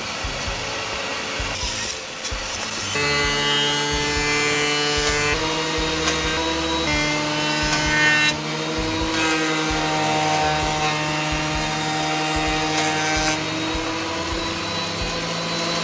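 Woodworking power tools cutting wood, a table saw and then a benchtop thickness planer, a steady machine and cutting noise. Background music with slow held chords plays over it, coming up about three seconds in.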